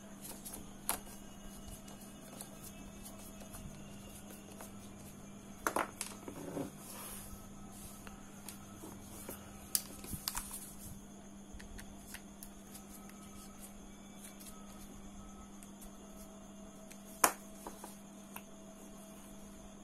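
Scattered small clicks, taps and brief rattles of a precision screwdriver and the plastic body of a Shimano Stradic CI4+ spinning reel being handled while its rear cover screws are taken out, over a steady low hum. The sharpest click comes near the end.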